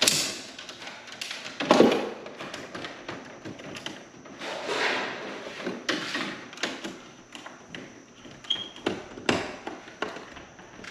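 Hands working wires in a metal breaker panel: scattered taps and clicks with short scraping rustles, and a louder thump about two seconds in.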